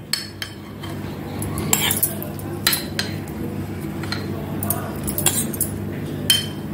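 Metal spoon clinking lightly against glass mugs as rose syrup is spooned into them: scattered short clinks at uneven intervals over a low steady hum.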